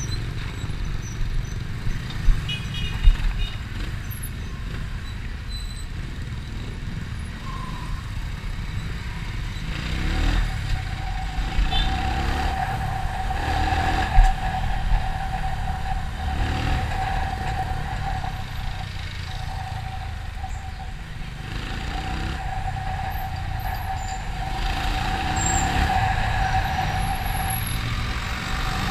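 Motorcycle engine running in street traffic, with rising pitch sweeps as it revs up through the gears about ten seconds in. A steady high tone joins about ten seconds in and continues to the end.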